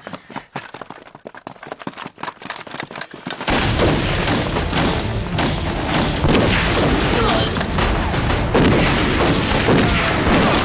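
Heavy gunfire in a staged firefight: many pistol and rifle shots overlapping into a dense volley. It breaks in suddenly about three and a half seconds in, after a quieter stretch.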